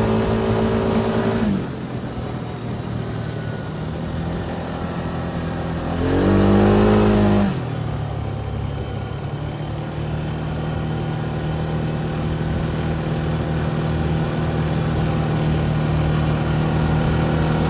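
A road vehicle's engine under way. The throttle closes about a second and a half in, and a short rev with rising pitch comes about six seconds in and cuts off a second and a half later. After that the engine runs steadily, its pitch slowly climbing.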